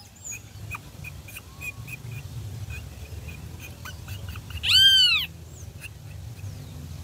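Great kiskadee nestling giving one loud squawk that rises and falls, about five seconds in, as it is held in the hand, with faint short peeps scattered around it.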